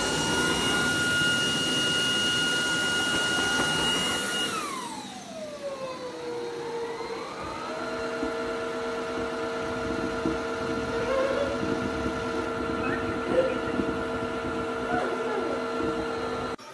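Roborock Dyad Pro wet-and-dry vacuum running with a high steady motor whine. About four and a half seconds in, the whine slides down in pitch and settles into a lower, quieter steady hum as the motor drops to a lower speed.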